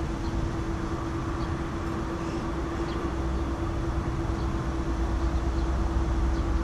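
Steady fan hum with one constant tone over a low rumble, from the cooling that runs while a Tesla Model S fast-charges at a Supercharger at about 116 kW.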